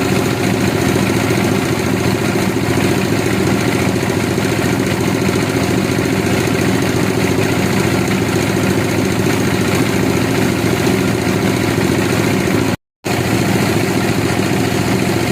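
Engine running steadily at an even speed, with a brief drop to silence about 13 seconds in.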